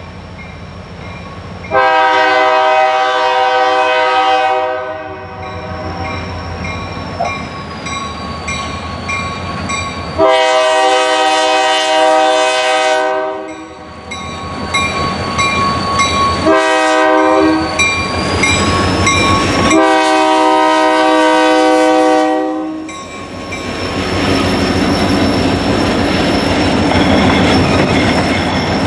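A diesel locomotive horn, on the lead unit, Marquette Rail EMD SD40-2 no. 3407, sounds the grade-crossing signal: two long blasts, one short and one long. Then the locomotive's two-stroke diesel engine and the wheels on the rails come up loud and steady as it passes close by.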